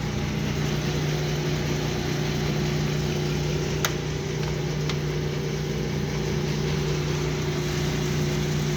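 Metal lathe running with the spindle turning and the carriage on power feed, giving a steady motor-and-gear hum. Two light clicks about a second apart come near the middle.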